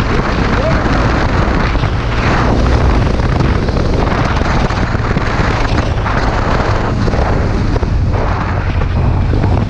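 Steady wind buffeting the microphone over the low, even running of a BMW R1200R LC's liquid-cooled boxer-twin engine, at riding speed.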